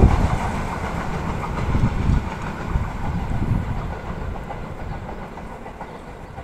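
Container freight train's wagons rolling away over the track: a loud knock as the last wagon goes by, then a few fainter clatters from the rail joints, with the rolling noise fading steadily as the train recedes.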